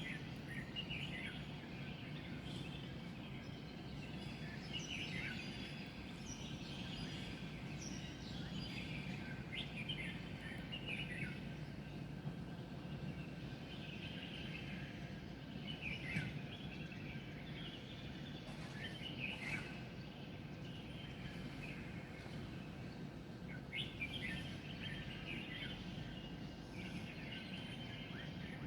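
Wild birds chirping and calling together at dawn: many short, quick, falling chirps in repeated bouts, over a steady low background hum.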